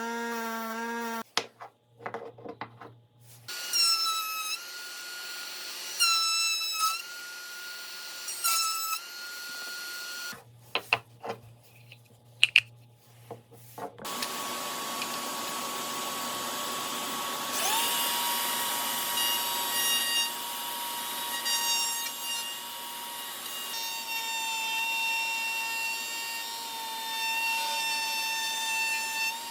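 Small electric power tools in woodworking: several brief runs with a whine rising in pitch at each start, with some clatter between them, then one running steadily through the second half, its pitch rising once partway through.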